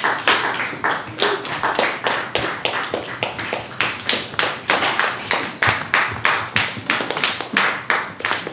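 Hands clapping in a steady rhythm, about four claps a second, growing fainter near the end.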